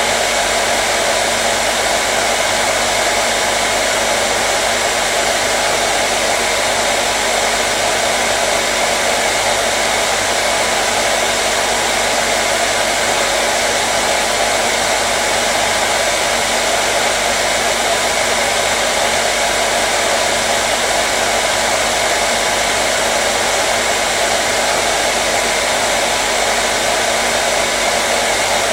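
Hair dryer running continuously, a steady rushing blow of air with a faint motor hum, unchanging throughout.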